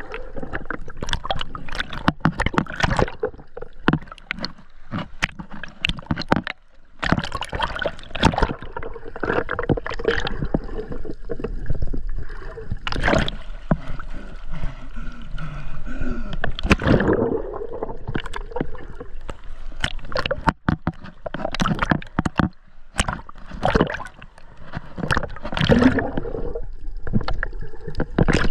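Sea water sloshing and gurgling around a GoPro camera that dips in and out of the surface, with irregular splashes and bubbling throughout.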